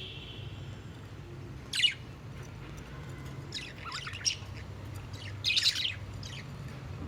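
Budgerigars chirping in short, scattered bursts of high calls, loudest about two seconds in and again near the end, over a steady low hum.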